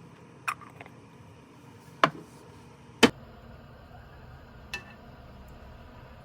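Four sharp knocks and clinks of kitchenware against a hard surface, spaced a second or so apart, the second and third the loudest.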